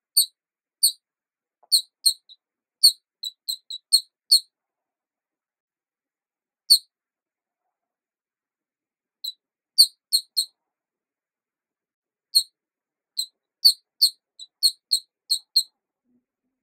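Short high-pitched squeaks, some single and some in quick runs of three to six, with a few seconds' pause twice. The dead silence between them marks them as an added sound effect.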